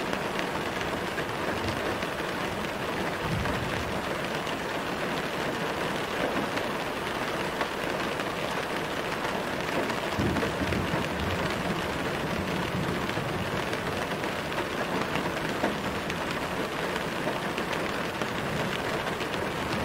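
Steady, gentle rain falling, an even continuous patter with no let-up. There are brief low swells a few seconds in and again about ten seconds in.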